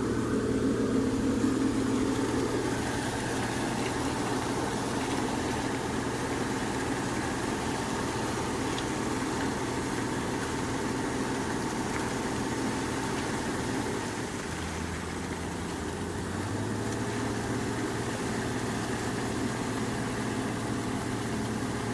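Engine of road-construction machinery idling steadily. Its note dips lower for a couple of seconds about two-thirds of the way through, then settles back.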